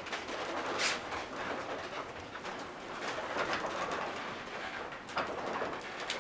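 Windmill machinery running: a stirrer arm sweeping ground meal round an iron pan, making a steady rumble and rustle, with a few sharp knocks.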